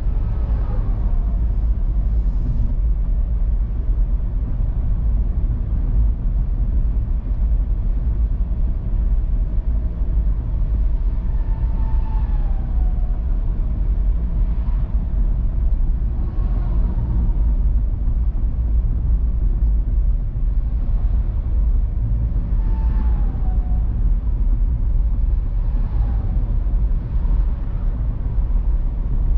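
Car driving at motorway speed: steady low road and engine rumble, with faint falling whines a few times.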